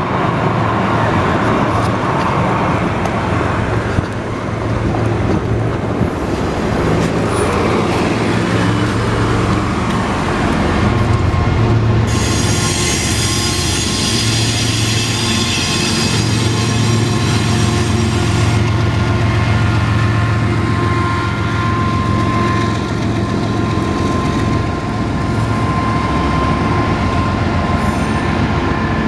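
Union Pacific freight train rolling past with a steady low rumble. A high, metallic wheel squeal starts about twelve seconds in and lasts several seconds. A thinner, steady squeal tone then carries on through the latter part.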